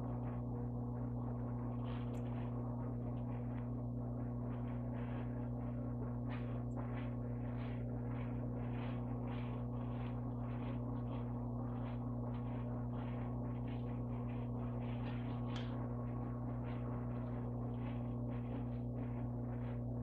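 Steady low electrical hum, typical of mains hum in a sound or recording system, with faint irregular ticks from the room over it.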